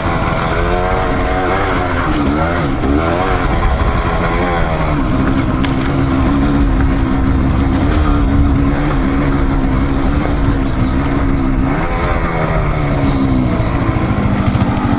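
Dual-sport motorcycle engine running while riding a trail. Its pitch rises and falls with the throttle for the first few seconds, holds steadier through the middle, then swings up and down again near the end.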